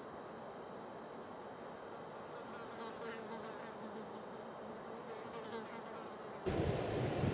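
A flying insect buzzing faint and steady close to the microphone. About six seconds in, a sudden rush of wind hits the microphone and becomes the loudest sound.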